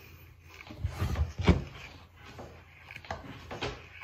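Handling noises close to the microphone: a fleece blanket and clothes being moved, rustling, with a few soft knocks. The loudest knock comes about one and a half seconds in.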